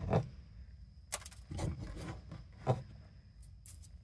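A hand clearing dirt and grit from around a fuel pump's top plate in an open access hole: a few short scrapes, rubs and light taps, spaced out.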